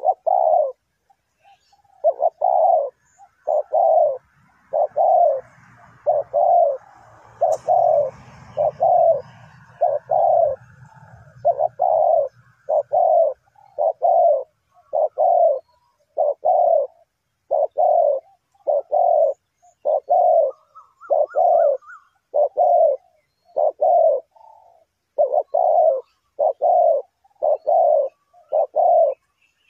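Spotted dove cooing over and over, a long series of short low coo notes at a fairly even pace, with a few brief pauses.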